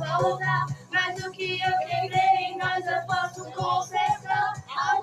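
A young female voice singing a pop song in Portuguese over a backing track with a steady low bass.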